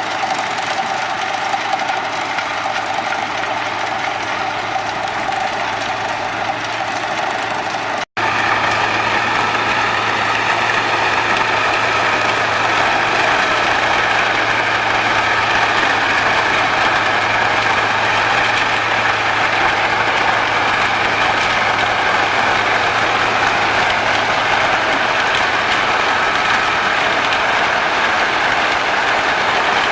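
Wood chipper's engine running steadily, with a steady low hum. The sound cuts off abruptly for an instant about eight seconds in, then resumes slightly louder with a steady whine on top.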